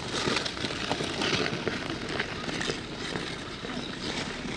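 Ice skate blades scraping and hissing over the ice as several skaters glide and push off, in irregular strokes.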